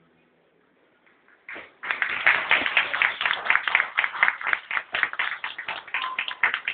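Audience applause after the orchestra's last note dies away, starting about a second and a half in after a short hush. One person claps loudly close by over the wider crowd's clapping.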